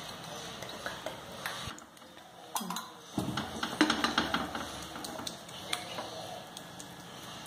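A hand patting and spreading thick semolina uttapam batter on a hot non-stick tawa, with scattered light taps and clicks against the pan. The taps cluster around the middle, and the loudest comes a little before the four-second mark.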